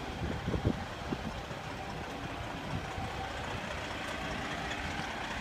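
Steady vehicle rumble, with a few dull thumps in the first second.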